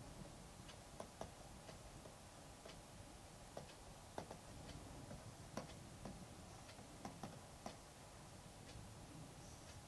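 Faint, irregularly spaced clicks and taps of a stylus writing on a tablet screen, about a dozen in all, over a low steady hiss.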